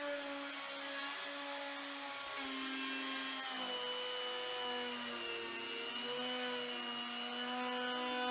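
Handheld router running steadily as it is pushed across a walnut-and-epoxy slab on a flattening sled, a high motor whine whose pitch sags slightly and recovers a few times as the bit takes the cut.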